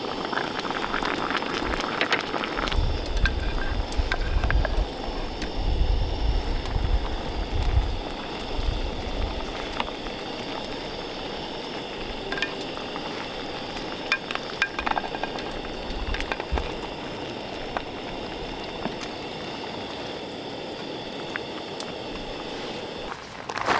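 Water boiling in a pot with cabbage leaves blanching, a steady bubbling hiss. A few sharp clicks of the wooden spoon against the pot come through, with some low thumps in the first half.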